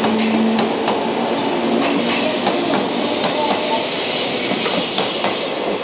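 JR West 113-series four-car electric train running past, with a steady rolling rumble. Its wheels knock sharply over rail joints a few times.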